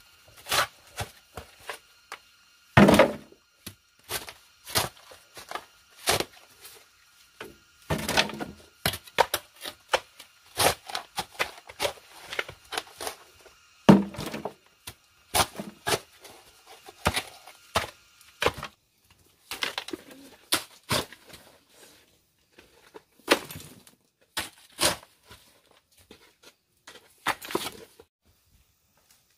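A steel shovel digging and scraping damp, clayey soil, with clods of earth thudding into a metal wheelbarrow: irregular strikes and scrapes, with a few heavier thuds among them.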